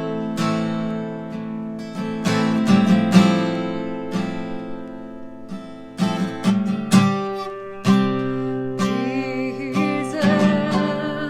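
Guitar being strummed, chords ringing out and fading between irregular strokes.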